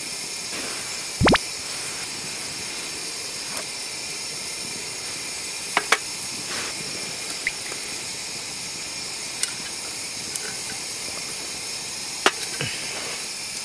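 Steady sizzling hiss from a steaming frying pan of trout and vegetables, broken by a few sharp clicks of chopsticks against the pan and a metal mug.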